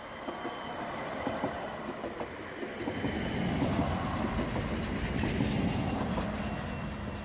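Two coupled Stadler Regio-Shuttle RS1 diesel railcars passing close by, the underfloor diesel engines humming and the wheels clicking, louder through the middle of the pass and easing off near the end.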